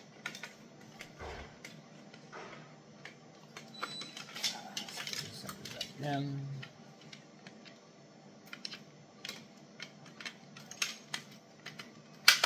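Plastic and metal parts of a GE Mac2000 ECG's paper tray assembly clicking and knocking as they are handled and fitted back together, with one sharp click near the end.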